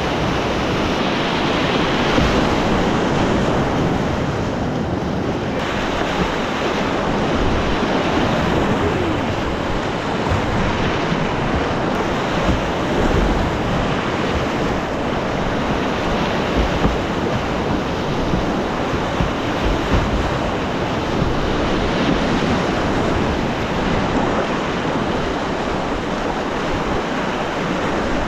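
Whitewater rapids rushing steadily and loudly close to the microphone, with low buffeting from wind and water on the mic.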